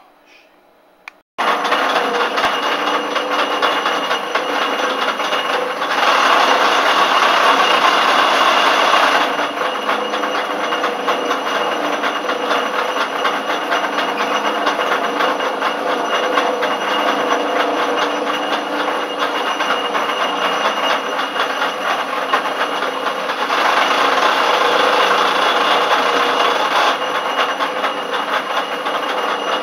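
Schaublin 102 CNC lathe running, starting abruptly a second or so in as a steady mechanical noise with a few constant tones. It gets louder twice for about three seconds each, which fits the threading insert cutting passes of an M27x1.5 thread at 250 rpm.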